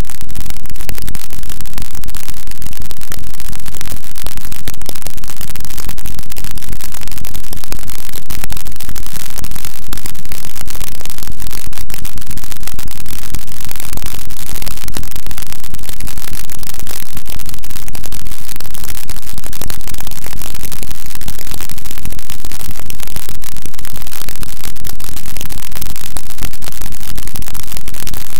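Harsh noise music: a loud, unbroken wall of distorted static that fills the whole range evenly, with no beat, melody or voice.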